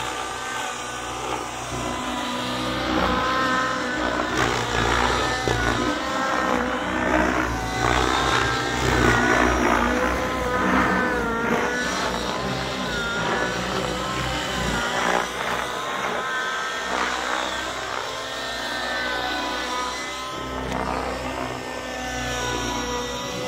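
Nitro engines and rotors of two large RC helicopters, a Gaui X7 and an Align T-Rex 700 Nitro, running in flight. Their pitch keeps rising and falling as the throttle and rotor load change through aerobatic manoeuvres.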